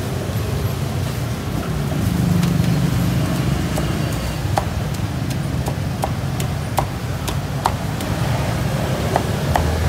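Cleaver chopping barbecued pork on a thick wooden chopping block, sharp irregular knocks coming more often in the second half, over a steady low rumble of street traffic.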